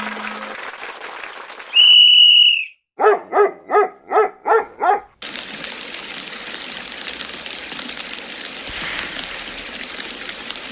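Cartoon sound effects: a short, loud, steady whistle, then six quick yaps like a small dog barking, then a steady hiss.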